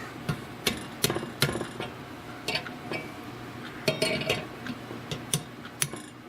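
Hand-tool work on metal: about a dozen irregular sharp clicks and clinks, a few ringing briefly, as a slot is cut down into an old saw blade.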